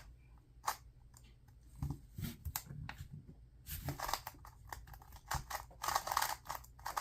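A 2x2 speed cube being turned by hand: plastic layers clicking and scraping as they turn, a few scattered clicks at first, then a fast dense run of turns from a little past halfway.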